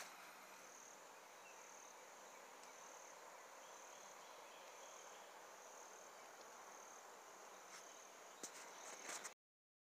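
Faint, high insect trilling that pulses about once a second over a low background hiss. A few sharp clicks come near the end, and then the sound cuts out abruptly.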